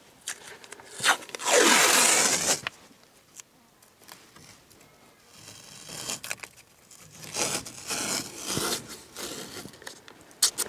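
Masking tape pulled off the roll with one long, loud ripping tear about a second and a half in, followed by softer rustles and rubbing as the strip is pressed down along the edge of a painting panel.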